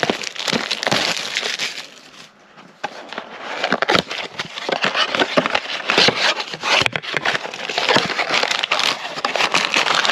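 A cardboard trading-card blaster box and its plastic wrapping being torn open and handled, with dense crinkling and crackling and a short lull about two seconds in.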